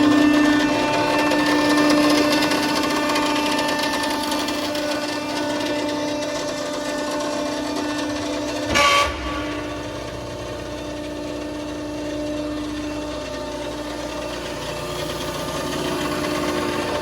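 Balemaster horizontal baler's hydraulic power unit running with a steady, even hum. About halfway through, a short, louder burst of noise cuts across it.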